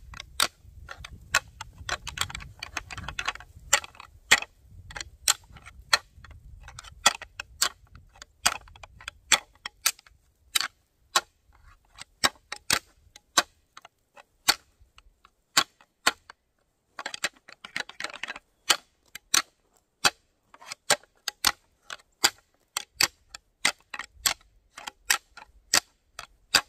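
A pair of deer antlers rattled together as a hunting call: sharp, irregular clacks about two or three a second, with two short stretches of grinding as the tines are twisted against each other. The sound imitates two bucks fighting and is meant to draw in a buck.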